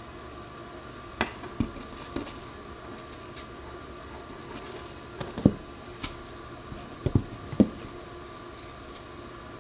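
Scattered light clicks and taps of small hard parts being handled, about eight in all, the loudest about halfway through and a quick cluster near the end, over a steady low hum.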